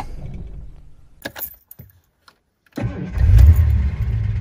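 Jaguar XJ6's XK straight-six dying away as the ignition is switched off, with a few clicks from the key. After a second of silence an engine suddenly cranks, catches loudly and settles into a steady idle.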